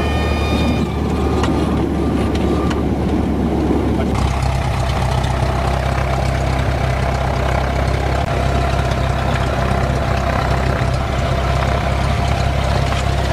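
Cessna light aircraft's piston engine and cabin noise, a steady hum heard from inside the cockpit. About four seconds in the sound changes: the rougher rumble gives way to a steadier, lower drone with a faint steady whine above it.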